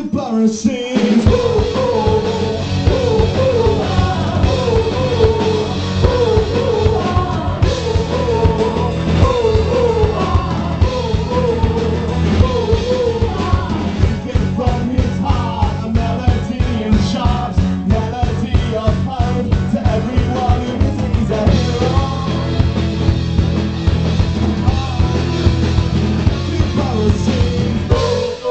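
Live band playing a song with singing, electric guitar, keyboards and a drum kit keeping a steady beat.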